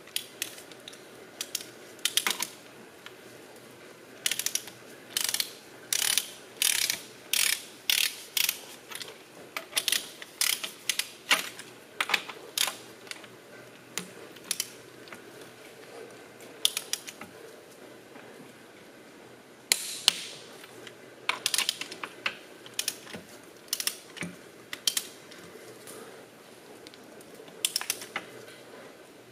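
Ratchet of a torque wrench clicking in repeated strokes as connecting-rod cap bolts are tightened toward 130 foot-pounds for a Plastigage bearing-clearance check. The clicking stops briefly about two-thirds of the way through.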